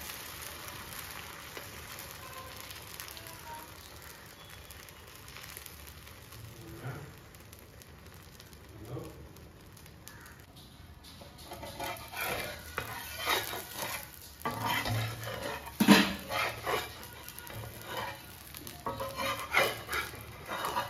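Egg omelette mixture sizzling on a hot cast-iron tawa. From about twelve seconds in, a run of short scrapes and clinks as a steel spoon and spatula work against the pan and bowl.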